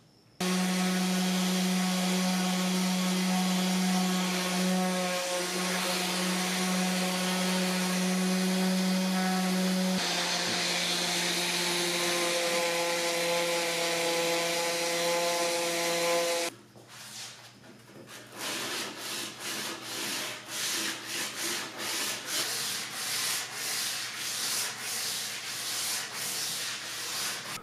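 Electric random orbital sander running steadily with a hum and a hiss, sanding red oak. A little over halfway through it stops and gives way to hand sanding: quick, even back-and-forth rubbing strokes of abrasive on a red oak board.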